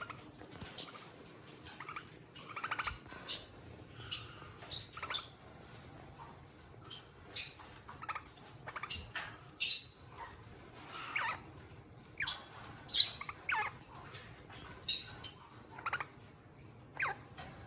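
Pet eastern rosellas calling: a string of short, sharp, high-pitched notes, many of them in quick pairs, with a few softer lower notes in between.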